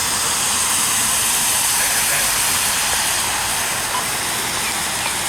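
Steady hiss of radio static from a receiver between transmissions.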